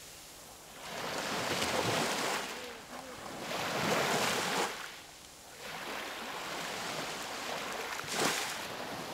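Sea waves washing in, the rush of water swelling and fading in several surges, with a short surge near the end.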